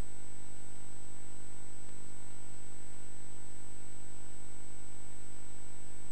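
Steady electrical hum with hiss and a thin, constant high-pitched tone: the blank audio of a VHS tape with no programme sound on it.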